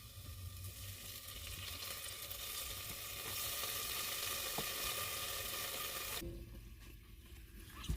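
Hot barbecue pork ribs sizzling in the air fryer, a steady hiss that swells midway and cuts off abruptly about six seconds in.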